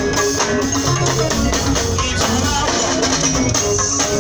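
Live kennery band music played loud through the stage PA: a stepping bass guitar line, guitars, drums and shaker percussion, recorded close to the speakers.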